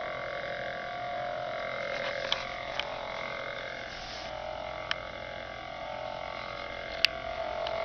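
Lightsaber sound board playing a steady electronic idle hum through the hilt's small speaker, the blade lit and held still. A few faint clicks sound over it.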